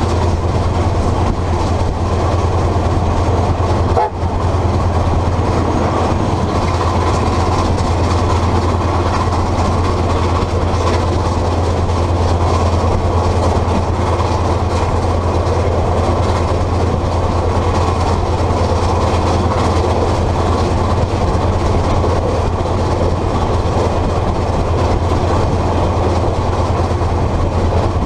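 Steady running noise of a moving train, a deep rumble with wheel and rail noise, heard from the front of a locomotive coupled behind the tender of NZR Ab class steam locomotive 608.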